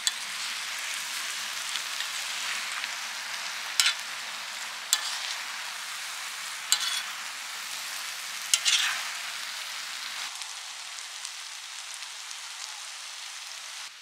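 Stir-fried sundae and vegetables sizzling steadily on a camping griddle as a metal spoon stirs them, with four sharp clinks and scrapes of the spoon against the pan in the middle. The sizzle eases a little near the end.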